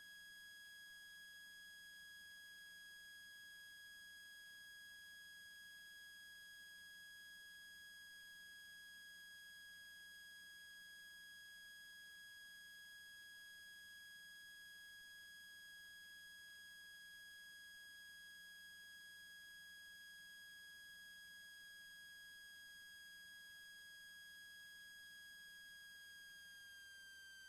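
Faint, steady high-pitched electrical whine with overtones on an otherwise near-silent audio feed, dropping slightly in pitch near the end.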